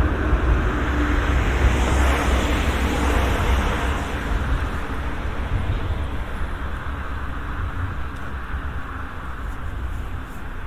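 A vehicle passing by: a low rumble and a rush of noise that swell about two seconds in, then fade away.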